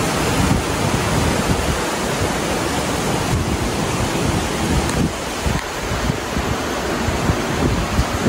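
Wind blowing across the microphone: a steady rushing noise with uneven low rumbling gusts.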